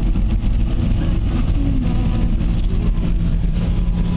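Car driving: steady engine and road rumble heard from inside the cabin.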